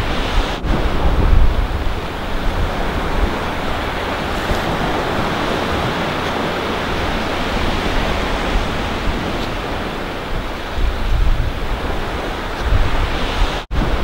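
Steady wash of surf breaking on a sandy beach, with wind buffeting the microphone in gusts. The sound drops out for a moment near the end.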